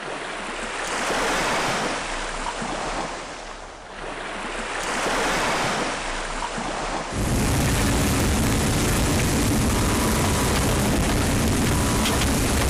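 Wind and rough sea rushing past a sailing yacht heeled over and beating into a strong headwind. The waves surge twice early on; from about seven seconds in there is a louder, steady rush with heavy wind buffeting the microphone.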